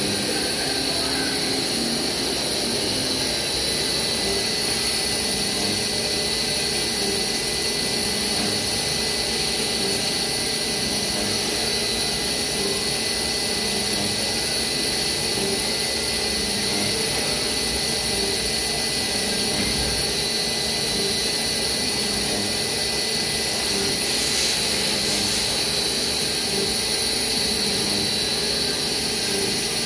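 CNC vertical machining centre milling a polyethylene worm screw: the spindle runs with steady high-pitched tones while the end mill cuts the turning workpiece under a coolant spray.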